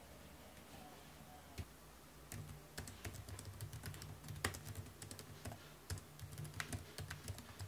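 Typing on a MacBook Air laptop keyboard: faint, quick, irregular key clicks, one stray click first, then a steady run of typing from about two seconds in until just before the end.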